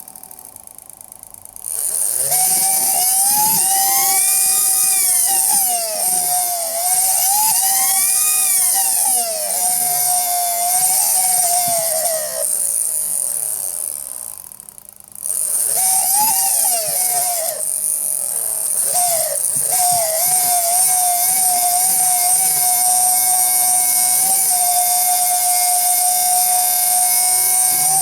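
Electric motor with worn-out bearings howling. The howl starts about two seconds in, swells and falls in pitch several times over a harsh high hiss, dies away around thirteen seconds in, then starts again and settles into a steady, wavering whine.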